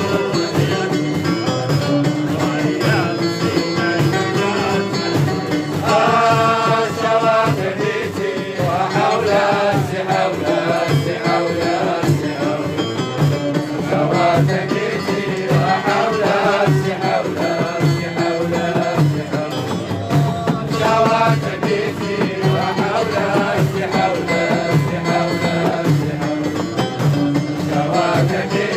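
Live folk music: singing over hand percussion keeping a steady, even beat, with accompanying instruments.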